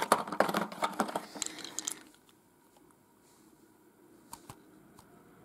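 Cardboard-and-plastic toy blister pack being handled and turned over: a quick run of clicks and rattles for about two seconds, then near silence with a few faint clicks.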